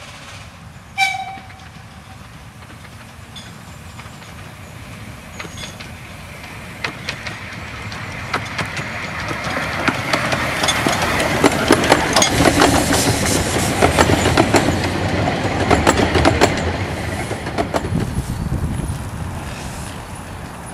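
A 15-inch gauge 0-4-2T steam locomotive gives a short whistle toot about a second in, then approaches and passes with its carriages. Its running and the clicking of wheels over the rail joints grow louder, peak as it goes by, and then fade away.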